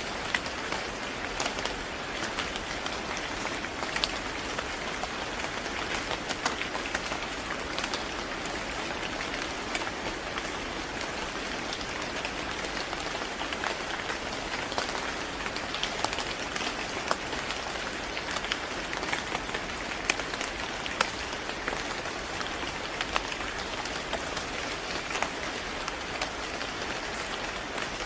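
Steady rain falling on a surface: an even hiss with many scattered drop ticks standing out.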